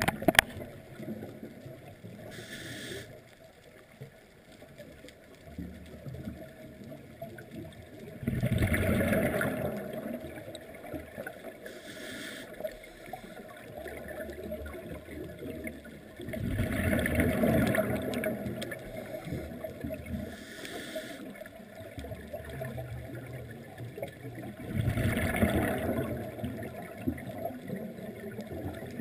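Scuba diver breathing through a regulator underwater: three exhalations, each a rumbling burst of bubbles lasting a second or two, about eight seconds apart, with fainter regulator hisses between them. A sharp click at the very start.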